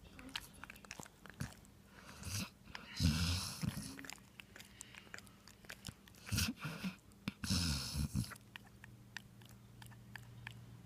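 Snoring: a few rough snore breaths a few seconds apart, with small clicks and mouth noises between them. After the last snore it goes quieter, leaving a faint steady low hum.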